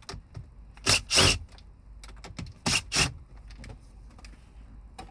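Four short whirring bursts in two pairs, about 1 s and 3 s in, from a tool backing out the 7 mm screws around the radio in a car dashboard.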